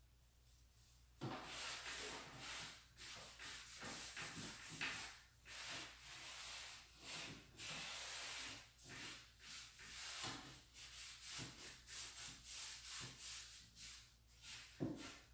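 A cloth rag rubs in quick, uneven strokes over chalk-painted wood, wiping back black furniture wax. It starts about a second in.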